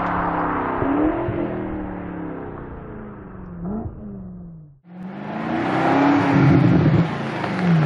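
A 2020 BMW M8 coupe's twin-turbo V8 through a GTHaus aftermarket exhaust, accelerating under load, its pitch climbing and dropping back. It fades out about five seconds in, then comes back revving up again and drops in pitch near the end.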